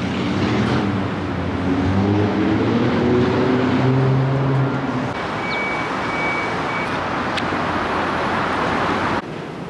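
Road traffic noise: vehicle engines and tyres on a city street, with an engine hum that shifts in pitch during the first few seconds.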